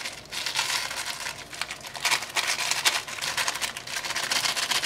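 Paper wrapper rustling and crinkling in the hands as ashwagandha powder is shaken out of it into a steel bowl.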